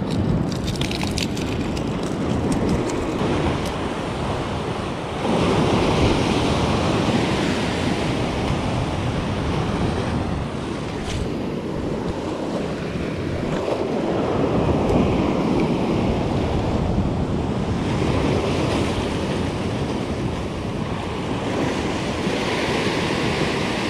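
Ocean swell surging and washing over a rock ledge, with wind buffeting the microphone. The wash swells up about five seconds in and again around fourteen seconds.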